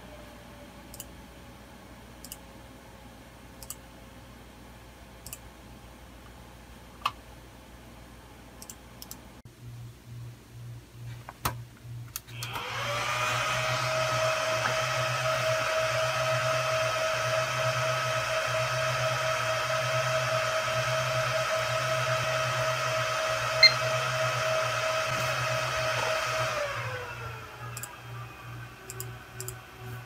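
Cooling fans of a small Supermicro SuperServer spinning up to full speed just after power-on: a loud steady whirring with a high whine that holds, then ramps down to a quieter hum near the end as the fans throttle back. Before that there is a faint fan hum with a few light ticks.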